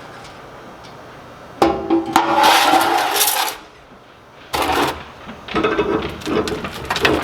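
Metal scraping and clanking inside a steel woodburning stove as ash is cleared out. There is a long ringing scrape about a second and a half in, a short harsh scrape a little after the middle, then a run of ringing metal clanks.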